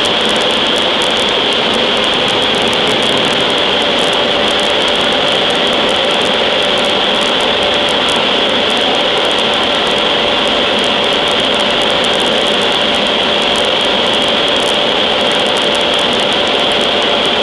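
Steady, loud machinery noise in a forge shop: a constant high whine over a lower hum, with no hammer blows.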